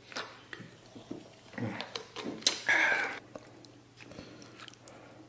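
Gulping soda from a plastic Sprite bottle: a few loud swallows and a breathy exhale in the first three seconds, then faint ticks of chopsticks against a steel pan.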